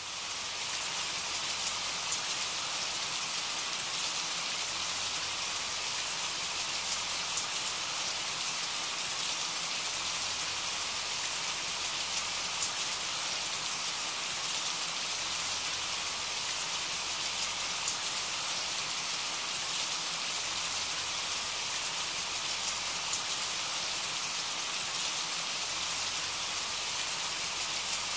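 Recorded steady rain: an even hiss of falling rain with scattered distinct drops, holding at one level throughout.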